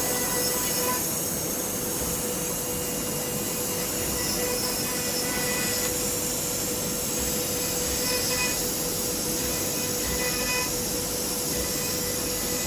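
Wood CNC router's spindle running steadily as it cuts MDF: a constant whine over a dense, hissing cutting noise.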